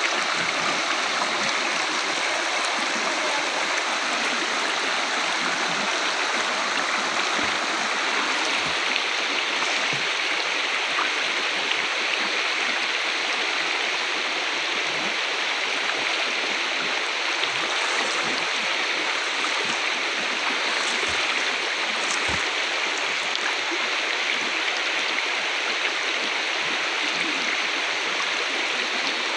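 Shallow river running fast over rocks: a steady rush of flowing water.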